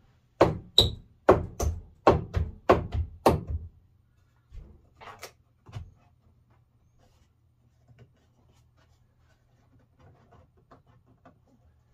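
Wood being knocked: about nine sharp blows in quick succession, two to three a second, then three lighter knocks a little later, as a piece of a wooden stand is driven down into place.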